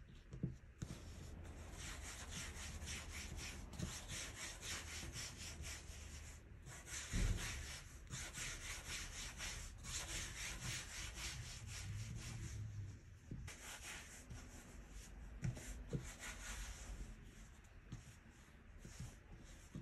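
Hands rolling bread dough into long ropes on a silicone pastry mat: a soft rubbing of palms and dough sliding back and forth in quick repeated strokes, with a single low knock about seven seconds in.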